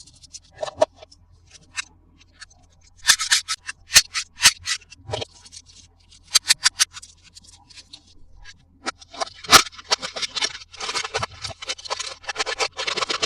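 Plastic toy parts and packaging handled up close: a run of sharp clicks and taps, a quick cluster of clicks a little after six seconds, then steadier scraping and crinkling over the last few seconds.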